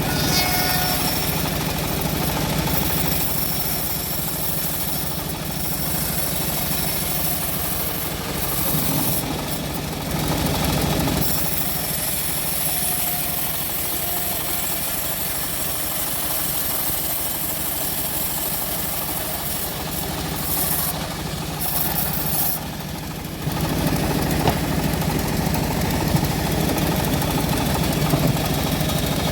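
Homemade bandsaw mill running steadily while sawing a teak log, a continuous machine drone with the blade's noise over it. The sound eases briefly a little over twenty seconds in, then comes back louder.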